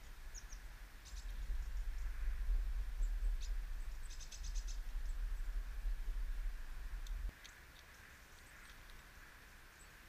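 Small garden songbirds giving short high chirps, with one quick run of repeated notes about four seconds in. Under them a loud low rumble runs until it cuts off suddenly about seven seconds in.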